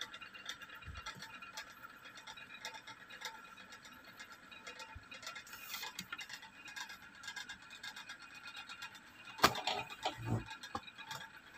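Faint, rapid ticking with a steady light hum behind it, and one sharp knock about nine and a half seconds in, followed by a few softer thuds.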